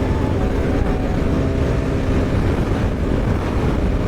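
Motorcycle engine running steadily under way, with a heavy low rumble of road and wind noise.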